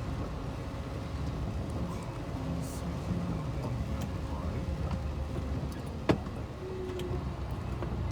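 Large truck driving, its engine and road noise heard as a steady low rumble from inside the cab, with a single sharp click about six seconds in.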